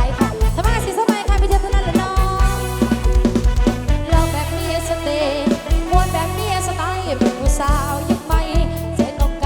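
Live Isan band music played loud through a rot hae sound truck's PA: a heavy drum-kit beat and deep bass under a wavering melodic lead.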